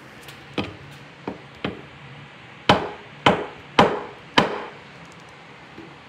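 Knocking on a door: three light knocks, then a pause and four harder, evenly spaced knocks.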